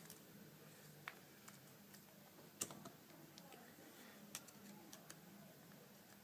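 Faint, scattered clicks and taps of small phone parts being handled and fitted by hand, about five in all, the sharpest a little before the middle.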